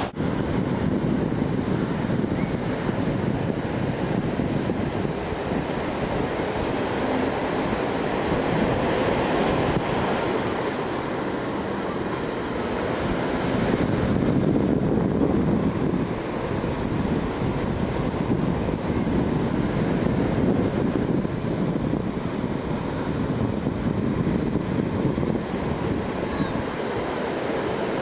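Ocean surf breaking and washing over a stony shore, a continuous rushing wash that slowly swells and eases, with wind buffeting the microphone.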